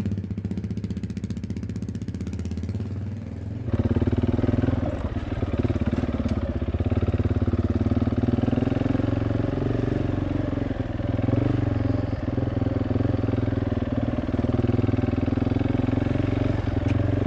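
Husqvarna 701 Enduro LR's single-cylinder engine running at low, fairly steady revs as the motorcycle is ridden slowly over rocky dirt. It is heard from a distance at first, then, about four seconds in, suddenly loud and close from on the bike.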